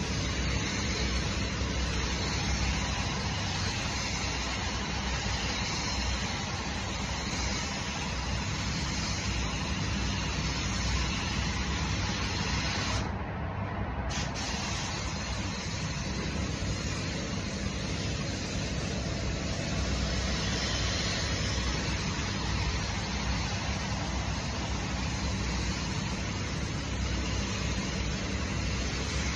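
Steady hiss of compressed air from a gravity-feed paint spray gun over the low, even noise of a spray booth's ventilation running. About halfway through, the hiss cuts out for about a second as the trigger is let go, while the booth noise carries on.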